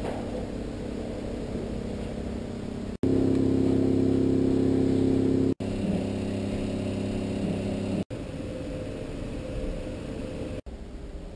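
A steady low droning hum of several held tones that cuts off sharply and starts again a little different every two to three seconds, loudest for a stretch about three seconds in.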